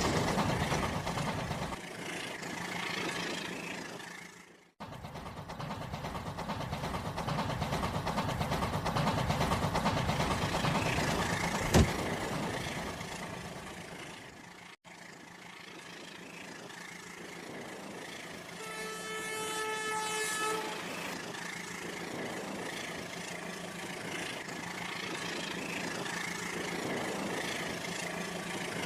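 Vehicle rumble with a horn sounding once for about two seconds past the middle. The sound drops out abruptly twice, and there is a single sharp click.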